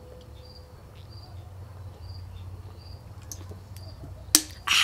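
A cricket chirping steadily in the background, about two short high chirps a second, over a low steady hum. Near the end there is a sharp click, then a short loud rush of breathy noise.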